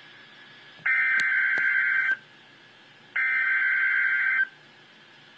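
Emergency Alert System SAME header: two bursts of digital data tones, each a little over a second long and about a second apart, over a faint hiss. It is the coded header that opens an emergency alert broadcast, ahead of the warning message.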